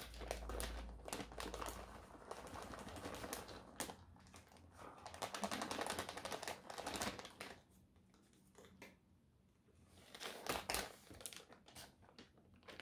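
Plastic bag of shredded cheese crinkling and rustling as it is opened and shaken out into a plastic measuring cup. It goes quieter about halfway through, with a few light taps near the end.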